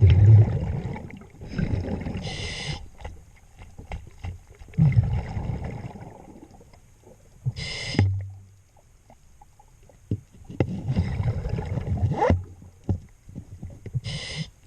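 Scuba diver breathing through a regulator underwater: exhaled bubbles rumble out, then a short rasping tone from the regulator on each inhale, three breaths about every six seconds. A few faint knocks in between.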